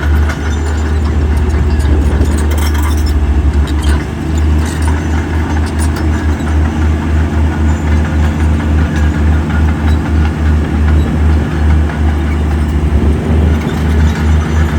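Heavy diesel engine of earthmoving equipment running under load, with a deep, rapidly pulsing note. Some clattering sounds over it in the first half.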